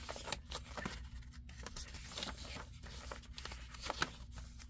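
Pages of a handmade junk journal being turned by hand: stiff paper and card rustling and flapping, with irregular soft clicks and one sharper tap about four seconds in.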